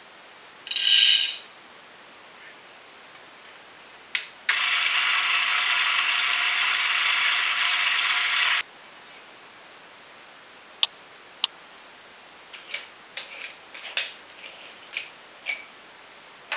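Coffee beans are poured into the plastic hopper of an electric burr coffee grinder, a brief loud rattle about a second in. A few seconds later the grinder motor runs steadily for about four seconds, grinding, and cuts off suddenly. Then come scattered light clicks and taps as the grounds cup and the aluminium moka pot parts are handled.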